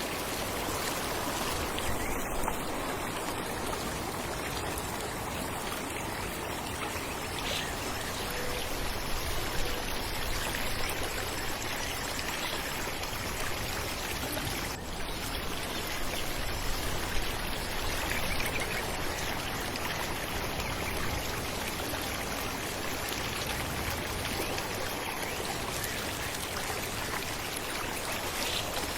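Falling water splashing steadily, an even rushing hiss with a few slightly louder splashes.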